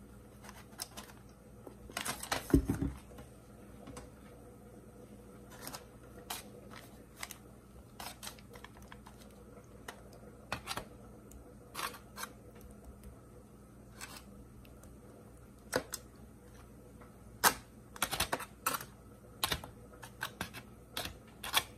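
Scattered light clicks and taps from handling a foil-lined baking pan of sauced chicken wings and a knife. There is a louder knock about two and a half seconds in and a quicker run of clicks near the end, as the knife goes to the sauce.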